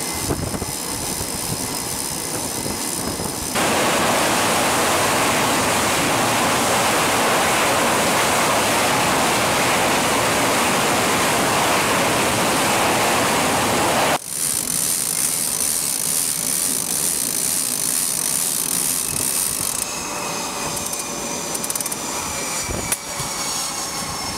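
Jet aircraft engines running on a carrier flight deck: a steady roar with high, steady whining tones. It jumps abruptly at two edits: louder and fuller about three and a half seconds in, then back to a thinner whine about fourteen seconds in.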